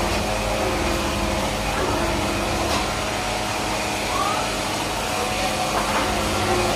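Hydraulic peanut oil press machinery running: a steady whir with a constant electric hum.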